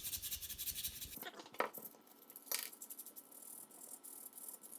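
Fine (280-grit) sandpaper wrapped on a plastic punch, rubbing in quick strokes inside a Steyr AUG receiver insert to ease a fit that is tight by microns. The rubbing stops after about a second, two sharp clicks follow about a second apart, then fainter scraping.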